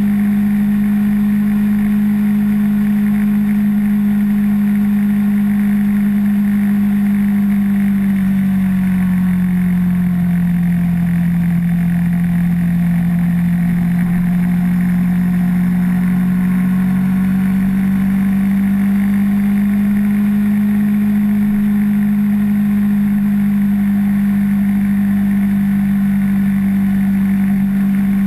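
Sport motorcycle engine running at a steady cruise. Its note sinks a little about a third of the way in, then climbs back up after several seconds as the bike picks up speed again.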